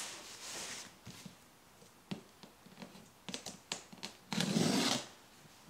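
Shipping box and packing being handled: scattered light knocks and taps, then a loud rough rustle or scrape lasting under a second, a little past the four-second mark.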